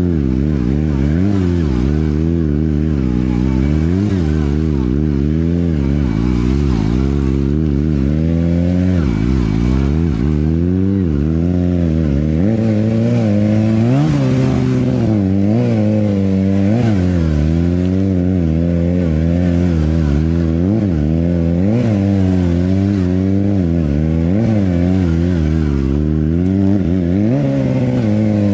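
Stunt sportbike engine held in a wheelie, its revs rising and falling about once a second as the throttle is worked to keep the front wheel up.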